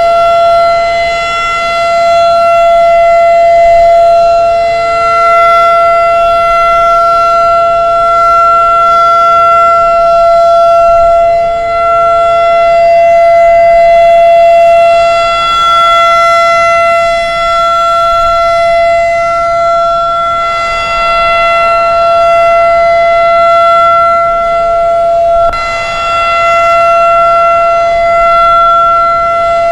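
Federal Signal 2001 rotating electromechanical warning siren sounding the alert signal: one continuous tone held at a steady pitch. Its loudness swells and fades every few seconds as the rotating head sweeps past.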